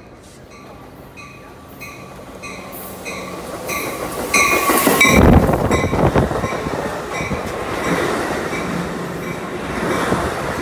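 Amtrak Pacific Surfliner passenger train pulling into the station and running past close by: the rumble and hiss of its wheels on the rails grow to their loudest about five seconds in and stay loud as the coaches go by. Through the first half a quick, regular ringing beat sounds over the approach.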